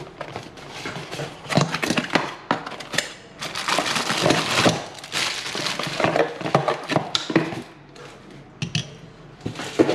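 Cardboard box flaps being opened and a plastic bag crinkling and rustling while a sink basket strainer is unpacked, with scattered clicks and knocks from handling the box and parts. The crinkling is loudest a few seconds in.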